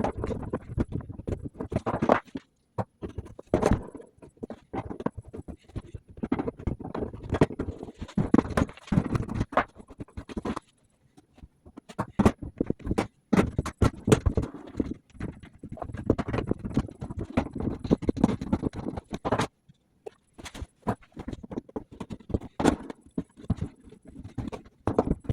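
Irregular clicks, knocks and scrapes of skateboard hardware being handled: wheels with bearings going onto the truck axles and the axle nuts being put on and tightened, with a brief lull about ten seconds in.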